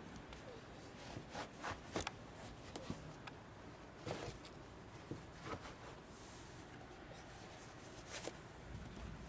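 Faint, irregular rustles and light clicks of handling and movement, spaced unevenly with a second or so between them, over a low steady background.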